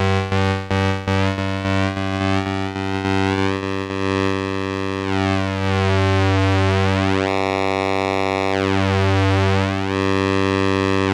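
Behringer 2600 analog synthesizer oscillator sounding one steady low pulse-wave note while its pulse width is changed by hand, so the timbre sweeps back and forth several times.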